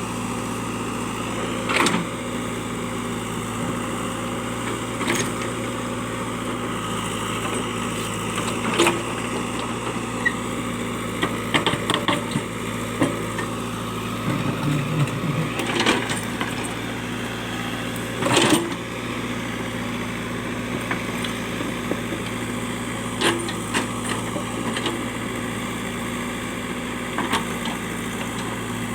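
Backhoe loader's diesel engine running steadily, with sharp knocks and clanks at irregular intervals from the machine working rocks.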